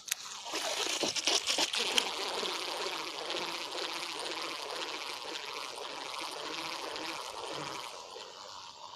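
Flowing water of a flood-swollen river, a steady rush, with a few sharp clicks in the first two seconds.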